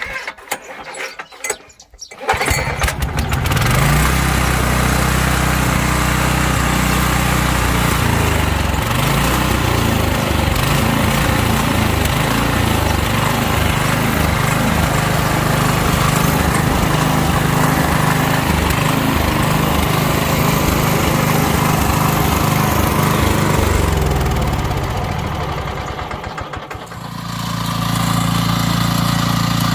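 Small gasoline engine of a walk-behind cultivator starting on choke about two seconds in and running steadily; near the end its speed sags almost to a stop, then it picks up again and settles into a steady run.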